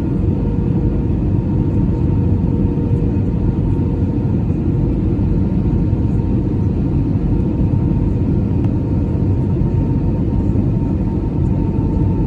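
Steady cabin noise inside an Airbus A319: a dense low rumble of engines and airflow, with two faint steady hums on top.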